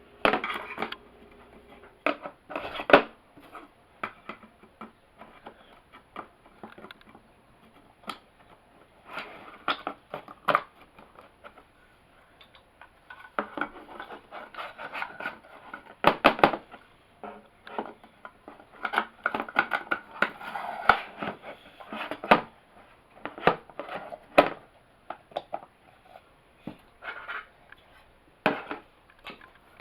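Puzzle box parts being handled: pieces sliding, clicking and knocking together, with short scraping rubs, at irregular intervals.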